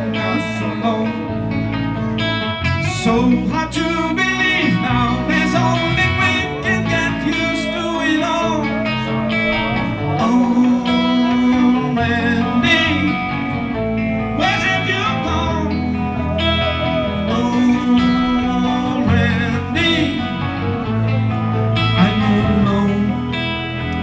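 Live rock band playing a blues number: a man singing into a handheld microphone over electric guitar and drums.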